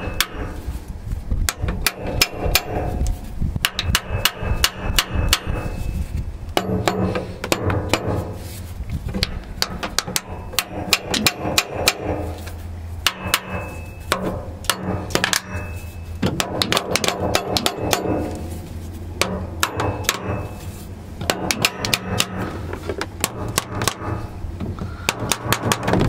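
Ratchet wrench clicking in quick, irregular runs as bolts on the bulldozer's clutch housing are turned.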